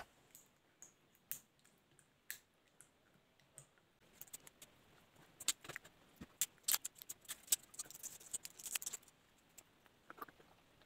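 Faint, scattered clicks and crackles of a plastic water bottle and its screw cap being twisted and worked open by hand, sparse at first and thickest from about halfway through.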